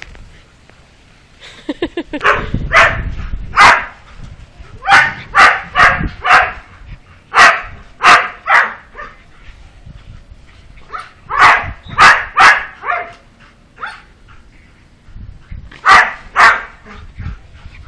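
Pitbull puppy barking: about sixteen short, sharp barks in groups of two to four, with pauses of a second or more between groups.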